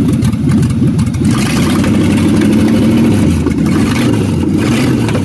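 1962 Mercury Comet's engine idling steadily, running off the battery alone with the alternator disconnected.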